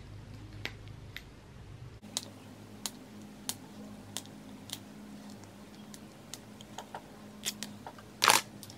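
Long fingernails picking and clicking at the plastic wrapping on a small cosmetic tube while trying to peel it off: irregular sharp clicks and ticks, with one louder knock near the end.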